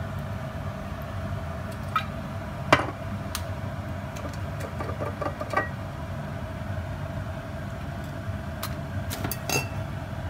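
Olive oil heating in a nonstick frying pan, giving scattered sharp ticks and pops, the loudest about three seconds in and a quick run of them near the end, over a steady low hum.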